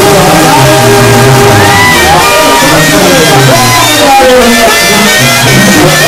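A Mexican banda brass band playing live and loud: a tuba bass line pulsing under trombones and clarinet, with a man's voice shouting or singing into a microphone over it.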